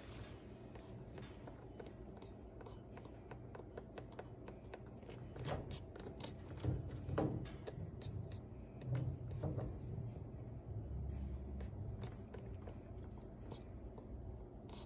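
Moluccan cockatoo digging and chewing in shredded bedding and toys on a cage floor: scattered rustles and small crackling clicks, louder and busier through the middle.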